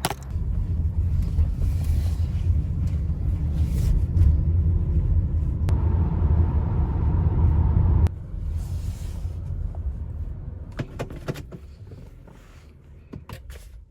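Low, steady rumble of a car on the move, which cuts off abruptly about eight seconds in. Quieter sound follows, with a few clicks near the end.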